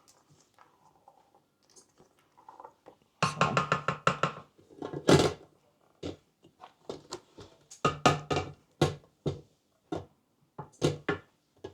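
Semi-sweet chocolate chips poured from their bag into the bowl, a quick dense rattle of small hits lasting about two seconds, followed by a series of separate knocks and taps.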